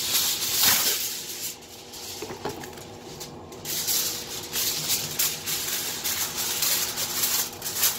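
Aluminium foil crinkling and rustling in irregular bursts as a foil-wrapped rack of ribs is handled and a second sheet of foil is spread over it, with a quieter lull a couple of seconds in.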